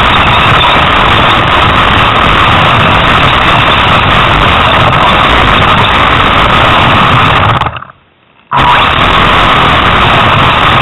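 Radio-controlled off-road car driving across a lawn with the camera riding on it: a loud, steady motor and driving noise with a constant hum through it. The sound cuts out for under a second about eight seconds in.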